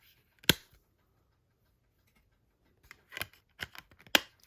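Metal steelbook Blu-ray case being handled: one sharp click about half a second in, then a run of lighter clicks and taps near the end.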